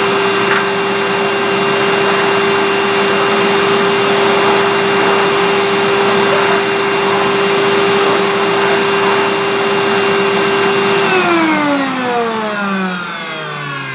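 National MC-701C bagless vacuum cleaner running at a steady pitch, then switched off about eleven seconds in, its motor winding down with a falling pitch.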